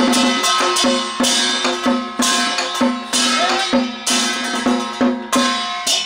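Temple ritual percussion: barrel drums struck together with ringing metal percussion in a steady beat of about two strokes a second, each stroke ringing on until the next.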